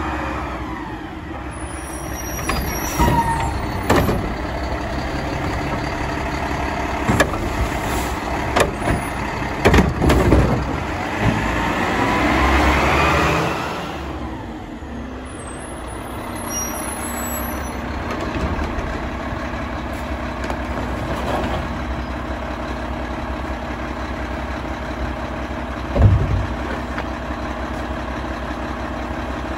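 Mack LEU garbage truck with a McNeilus Contender body and Curotto Can running as it pulls up and stops, with clunks and knocks from the body and a long air-brake hiss about halfway through. Near the end there is a loud bang as refuse is loaded into the Curotto Can.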